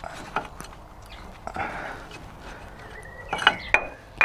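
Light metallic clicks and knocks of a Mazda MX-5's front brake pads and caliper being handled as the pads come out. Near the end come a few sharper clinks with a brief metallic ring.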